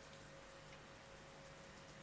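Near silence: only a faint, steady hiss of rain-sound white noise, with a faint steady hum.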